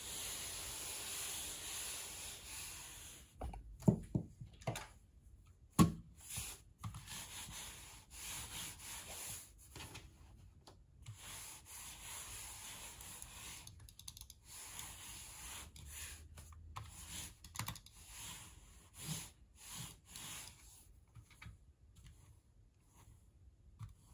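Hands sweeping across the cloth surface of a large gaming mouse pad, a steady rubbing hiss, then two sharp knocks about four and six seconds in. After that a Razer Viper mouse is slid back and forth over the cloth in short, uneven strokes.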